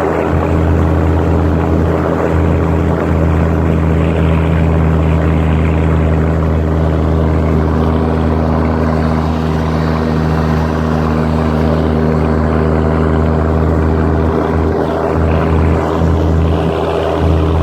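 Mercedes G-Class engine running at steady revs, a continuous low drone with little change in pitch.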